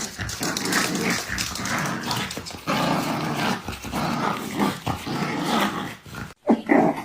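A dog growling and grumbling, irregular and continuous over a noisy background, then cut off abruptly near the end. A few short, louder dog noises follow.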